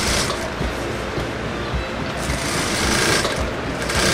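Industrial single-needle lockstitch sewing machine stitching a suit sleeve into the armhole, running in spurts as the fabric is eased in by hand. It runs louder from about two seconds in.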